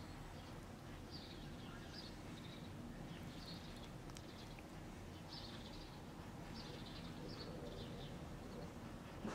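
Small songbirds chirping in short repeated phrases, about one a second, over a steady low background hum, with a brief click near the end.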